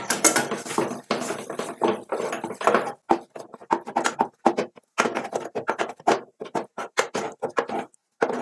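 Wooden spatula stirring and mashing thick cabbage fufu dough in an aluminium pot, a quick irregular run of knocks and scrapes against the pot as the dough is worked so it does not stick.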